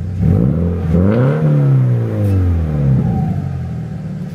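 Subaru BRZ's flat-four boxer engine idling, then revved once: the pitch climbs for about a second and falls back to idle by about three seconds in.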